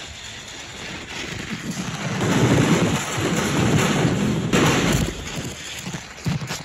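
A film sound effect played through a museum exhibit's speakers: a low rumbling noise with a hiss like rain, swelling about two seconds in and easing off near five seconds.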